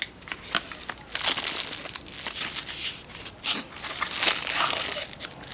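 Cellophane wrapping crinkling as it is handled and pulled off a packaged grinder, with a couple of light clicks in the first second.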